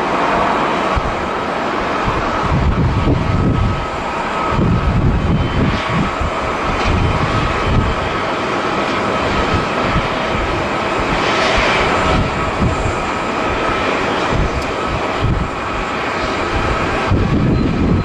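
Twin-engine jet airliner climbing out after takeoff, engines running at high power: a steady loud noise with a held whine, over an uneven low rumble.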